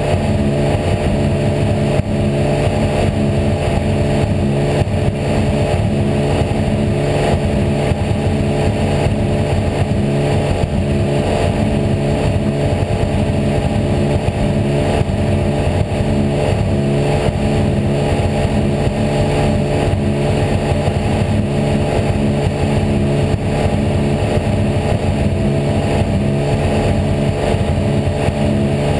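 Porsche 911 GT3 R race car's flat-six engine, heard onboard, running steadily at one engine speed with no revving or gear changes.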